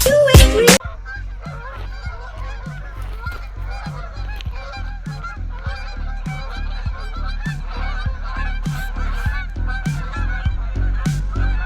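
Loud music cuts off under a second in, giving way to a large flock of birds calling, a dense, continuous chatter of many overlapping calls. A regular low thump about twice a second and a steady low hum run beneath it.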